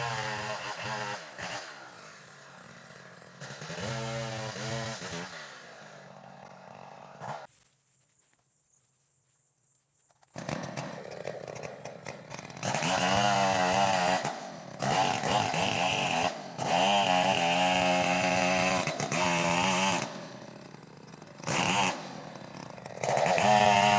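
Stihl chainsaw's two-stroke engine revving in bursts, its pitch wavering up and down as it cuts wood. It drops out to near silence for a couple of seconds about a third of the way in, then runs louder.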